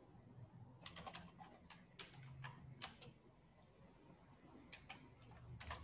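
Faint, scattered keystrokes on a computer keyboard, in a few short clusters of clicks with pauses between them.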